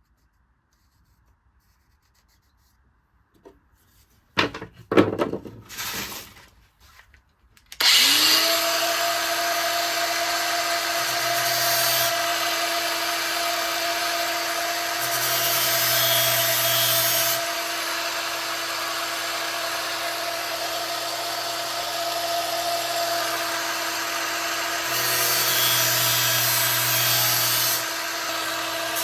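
Electric power tool knocked about while it is picked up, then switched on about eight seconds in, spinning up to a steady whine and running on, with three stretches of louder grinding as it is worked against the piece.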